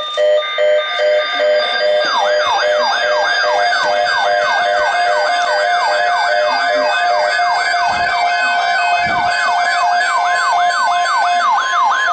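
Several weather alert radios sounding their alarms at once. Short repeated beeps start things off, then a siren-like alarm tone sweeps down over and over, about three times a second, with higher warbling alert tones on top.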